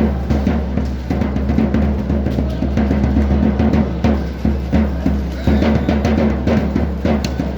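Drums beaten in a fast, steady rhythm, with several heavy hits a second.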